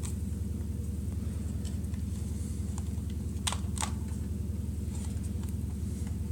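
A steady low hum underneath a few light clicks and taps from handling a trackball mouse and its small parts, with two sharper clicks close together about halfway through.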